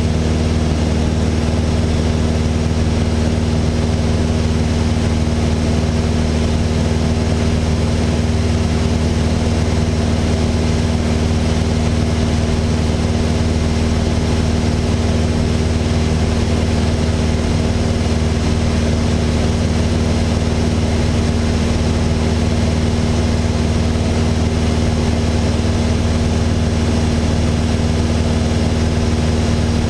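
Steady drone of a Mooney M20J 201's four-cylinder Lycoming IO-360 engine and propeller in flight, heard inside the cabin: a strong low hum with steady tones above it, unchanging throughout.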